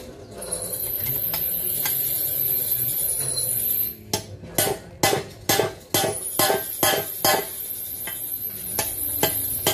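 Hammer striking steel fittings: about a dozen sharp metallic blows at roughly two to three a second, starting about four seconds in. Before the hammering there is a steady high-pitched hiss.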